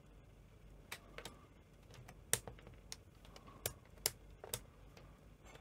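Front-panel push buttons of a Sony SL-C9 Betamax being pressed one after another, giving about eight sharp clicks at irregular intervals, starting about a second in.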